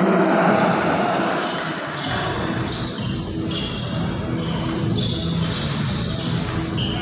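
Basketball court sounds during play: a ball bouncing on the hardwood and repeated short, high sneaker squeaks.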